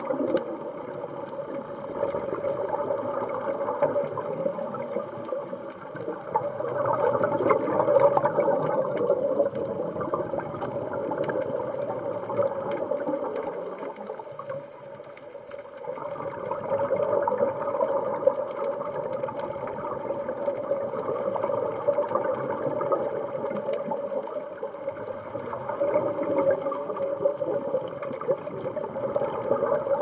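Underwater sound of scuba breathing: exhaled air bubbling and gurgling out of a regulator, swelling and easing with each breath.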